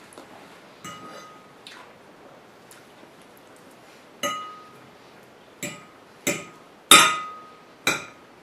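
Metal fork clinking against a glazed ceramic plate while picking up pieces of chicken: a series of sharp clinks, each with a short ring. The clinks grow louder in the second half, the loudest about seven seconds in.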